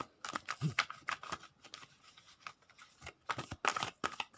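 Tarot cards being shuffled and handled: a run of quick, crisp card clicks and rustles, busier near the end.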